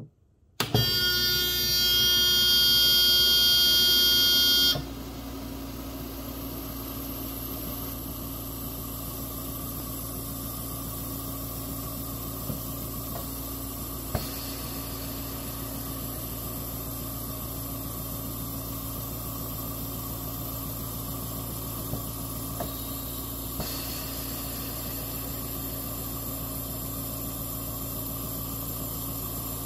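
AirSep Intensity oxygen concentrator: a loud, steady buzzer tone for about the first four seconds, then its compressor running with a steady hum and a faint click now and then. This is the normal operating sound of a properly reconditioned unit.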